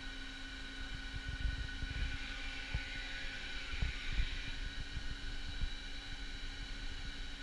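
Haas SL-40 CNC lathe running, a steady machine whine with several held tones, over irregular low thuds.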